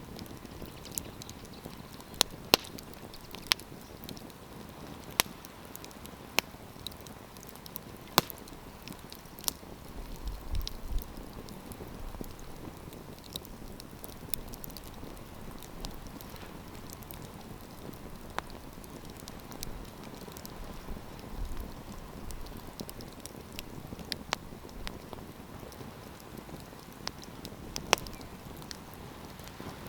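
Wood campfire crackling: irregular sharp pops and snaps over a steady hiss of flames, with a few louder pops now and then.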